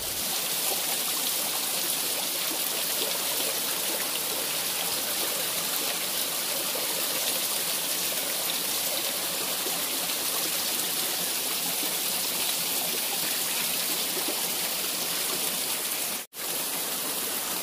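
A thin stream of water spilling off a rock ledge and splashing onto the rocks below, a steady hiss of falling water that breaks off for a moment near the end.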